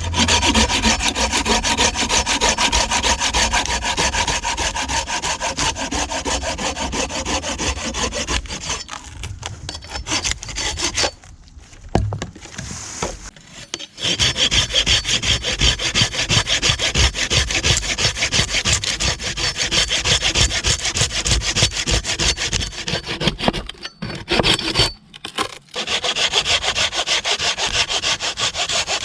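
Hand saw cutting through wood in fast back-and-forth strokes, stopping briefly a few times before starting again.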